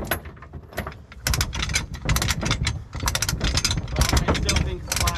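Rapid metallic ratcheting clicks, starting about a second in and coming in quick strings, over a low engine rumble.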